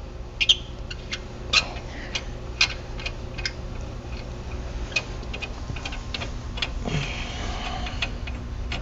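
Sharp, irregular metal clicks and clinks of hand tools on the Ram 1500's wheel hub mounting bolts as they are backed out, about one a second, over a steady low hum.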